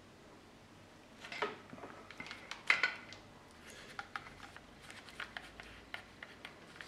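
Handling noise: irregular clicks and light knocks as a small plastic handheld device is turned over in the hands. The loudest cluster of clicks comes a little before the middle, with scattered lighter ticks after it.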